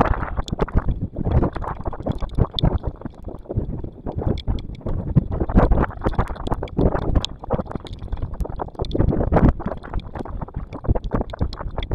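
Storm wind buffeting the microphone in uneven gusts, with rain and many short ticks of drops striking the camera housing.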